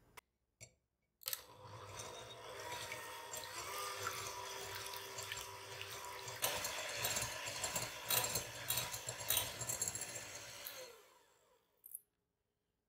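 Electric hand mixer whisking egg whites into a froth in a glass bowl: a steady motor whir with the wire beaters swishing through the liquid and ticking against the glass, busiest in the middle stretch. Near the end the mixer winds down and stops, and a short click follows.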